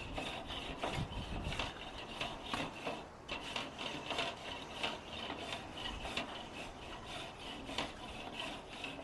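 Wire grill brush scrubbing a barbecue grill grate, steady back-and-forth scraping strokes at about two a second.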